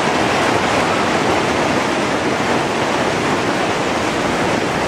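Heavy hailstorm: hailstones and rain pelting a paved street and parked vehicles in a loud, steady rush.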